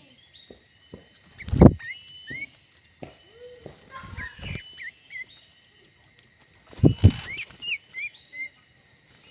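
Small birds chirping in short, quick notes, with two loud, low thumps: one about a second and a half in, the other near seven seconds.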